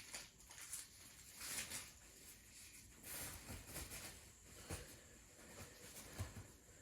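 Faint rustling and handling of a paper tissue, with a few soft breaths.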